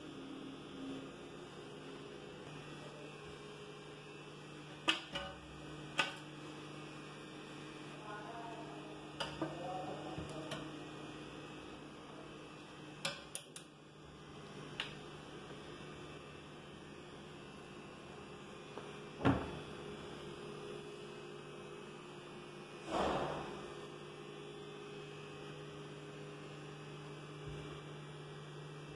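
Steady low electrical hum, with scattered clicks and knocks from cabinet doors and plastic storage containers being handled; one sharp knock about two-thirds of the way through and a softer, longer thump soon after.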